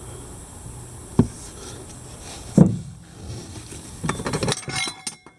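Boat-ramp kit parts being handled in a cardboard shipping box: two knocks about a second and a half apart as roller wheels are moved, then a clatter of galvanized steel brackets knocking together near the end, which cuts off suddenly.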